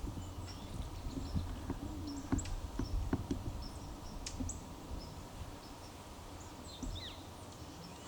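Small birds chirping in short high notes over a low rumble of wind, with a falling whistled call about seven seconds in and a few sharp ticks or taps in the first half.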